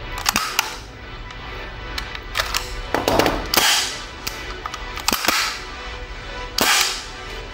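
Ingram MAC-10 submachine gun being handled: several sharp metal clacks and short scrapes of steel parts, over faint background music.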